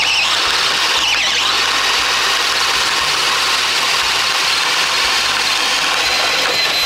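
DeWalt DCD800 compact brushless drill on speed 1 boring a 1¼-inch Spyder self-feeding spade bit through a 4x4: the motor runs steadily under heavy load while the bit cuts the wood, with a thin high whine near the end.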